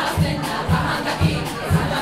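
Large choir singing and shouting in unison over a steady low thudding beat, about two beats a second.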